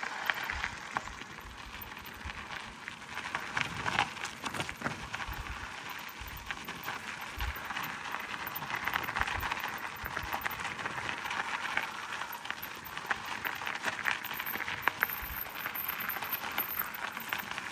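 Gravel bike tyres crunching over a rough gravel road, a steady crackle with many small clicks and pops from stones under the wheels.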